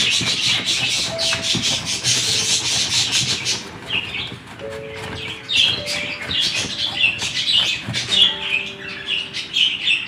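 Potato grated by hand on a metal box grater: repeated rasping scrapes. A dense run of strokes gives way, about four seconds in, to sparser strokes.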